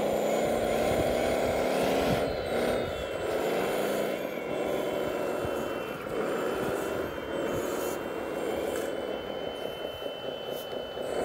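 Scale RC wheel loader running as it drives and lifts a bucket of sand: a mechanical machine sound that rises and falls in pitch, joined about three seconds in by a steady high whine.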